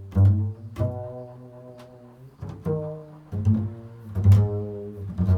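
Improvised music of low plucked string notes, about seven in a slow, unhurried line, each struck sharply and left ringing with full overtones before the next.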